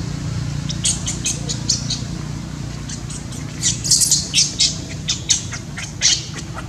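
Newborn macaque squealing in a rapid series of short, high-pitched cries, which grow louder and more frequent from about three and a half seconds in.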